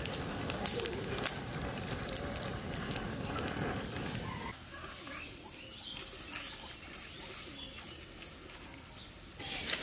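Open fire of split bamboo and dry sticks crackling, with sharp pops in the first couple of seconds and scattered smaller ones after. Birds call in the background.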